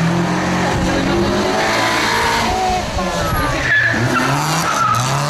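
Small hatchback's engine running hard as the car slides around a cone, with tyres squealing in the second half.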